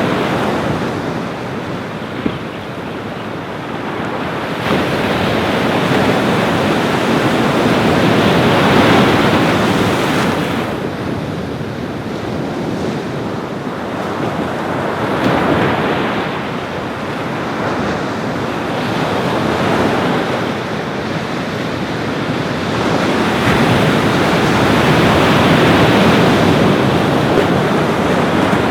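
Ocean waves breaking and washing on a beach, the surf swelling and ebbing every few seconds, with wind buffeting the microphone.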